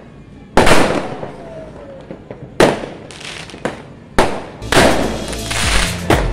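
Aerial fireworks going off: three sharp bangs about two seconds apart, with smaller crackling pops between them, and a dense crackle of bursts from about halfway through.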